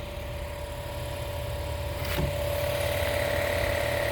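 A motor running steadily: a low rumble with a constant whine, and one short click about two seconds in.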